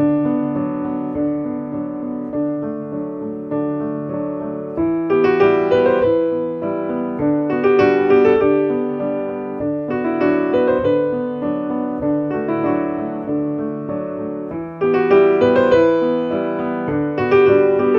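Background piano music: a slow, soft melody of struck notes with sustained chords, growing fuller and louder about five seconds in and again about fifteen seconds in.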